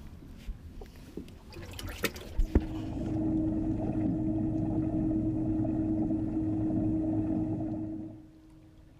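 A bass boat's livewell pump running steadily with water flowing. It starts just after a couple of sharp clicks about two and a half seconds in and cuts off about eight seconds in.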